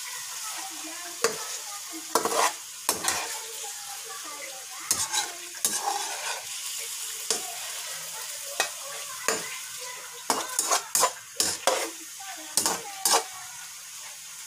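Meat frying in a metal pan, a steady sizzle, while a slotted metal spatula stirs it, scraping and knocking against the pan in many short, irregular clicks.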